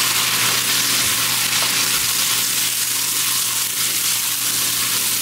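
Pork belly, spare ribs, tomatoes and onions sizzling in hot oil in an enamelled cast-iron pot, stirred with a wooden spoon. A steady hiss runs throughout, with a few soft knocks of the spoon.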